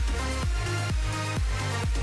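Background electronic dance music with a steady four-on-the-floor kick drum, about two beats a second.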